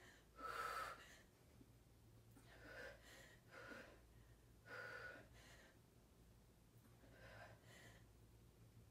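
A woman's faint breaths with exertion: about six short, airy exhalations spaced a second or two apart.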